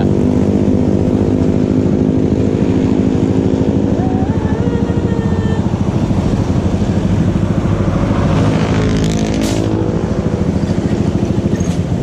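Small motorcycle engine running steadily as the bike is ridden, then easing off about two-thirds of the way in as it slows and pulls up. A brief hiss comes near that point.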